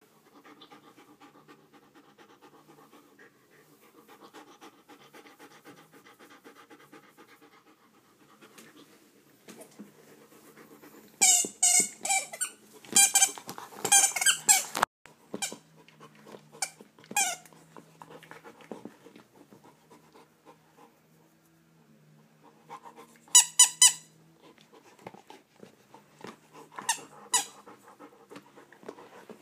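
A German Shepherd chewing a rubber squeaky toy ball, with rapid runs of high-pitched squeaks about eleven to fifteen seconds in, a shorter burst near twenty-four seconds and a few more near the end. The dog pants softly in between.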